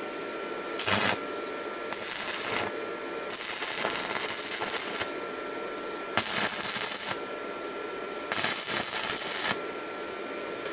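Stick-welding arc from a Mächtz MWM-355 TB inverter welder crackling in five short bursts of one to two seconds each, as tack welds are struck on rusty, unprepared rebar with a 3.2 mm electrode at about 150 A. A faint steady high tone runs underneath.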